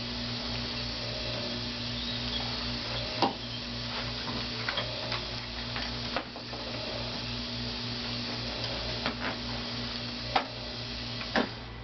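Steady electrical hum with a handful of separate sharp clicks and knocks, a few seconds apart, during a chiropractic adjustment of a small child.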